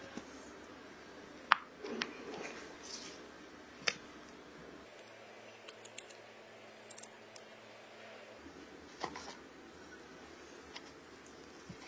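Quiet kitchen handling sounds while baking: a few sharp taps and light clicks of utensils on glass bowls and a baking tin, the loudest tap about a second and a half in.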